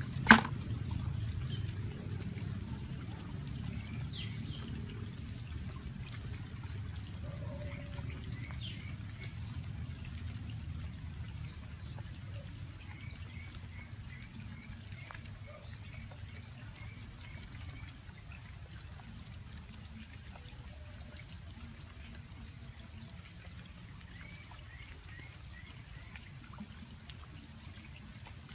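Outdoor ambience: a steady low rumble that slowly fades, with several runs of short, high, evenly repeated chirps and one sharp click just after the start.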